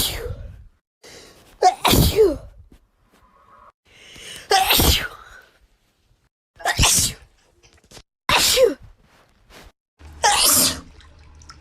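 A run of wet sneezes, about five loud 'achoo' sneezes a second or two apart, each a sudden pitched cry breaking into a spray of breath.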